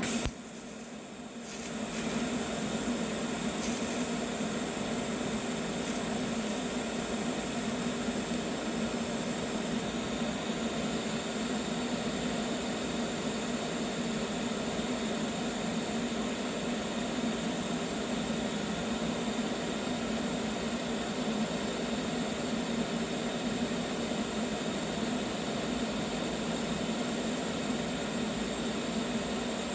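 Eastwood TIG 200 welding arc running: a steady buzzing hiss that starts with a click and settles in at full level after about two seconds. The amperage is set a little low, so the metal is slow to heat.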